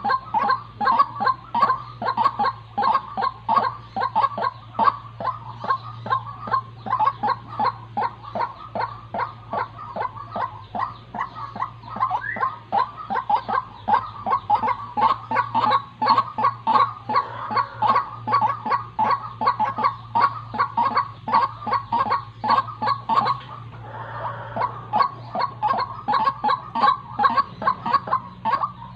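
A female white-breasted waterhen, a caged decoy, calling in a fast, steady string of short calls, about three a second. The string breaks off for about a second near the end, then resumes.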